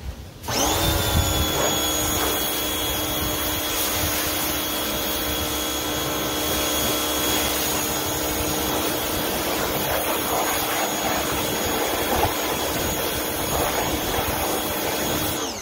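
Craftsman 1700 PSI electric pressure washer starting up with a rising whine about half a second in, then running steadily with the hiss of its water jet spraying a car wheel. Near the end it shuts off and the motor winds down with a falling pitch.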